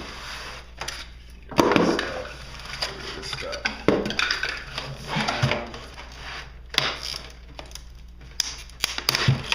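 Cardboard and plastic packaging being handled and pulled apart while a boxed speaker set is unpacked: irregular rustling and crackling with several louder crunches.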